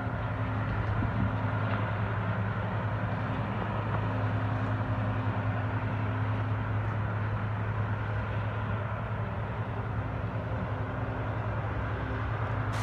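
John Deere combine harvester running steadily as it harvests corn: a loud, unbroken engine drone with a steady low hum over a continuous rushing noise.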